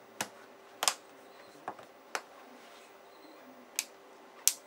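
Six sharp clicks and taps, irregularly spaced, as a Samsung Galaxy S4's plastic and metal frame parts are pressed and handled on a work surface; the loudest click comes near the end.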